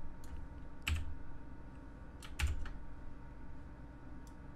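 A few separate keystrokes on a computer keyboard, the two loudest about one second in and about two and a half seconds in, over a faint steady hum.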